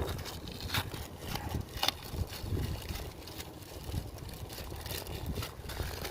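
Scattered light clicks and knocks of exhaust pipe sections and gaskets being handled and fitted together, over a low rumble of wind on the microphone.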